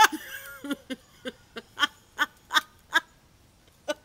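A woman laughing hard: a high sweeping laugh at first, then a run of short, evenly spaced 'ha' bursts about three a second that grow fainter near the end.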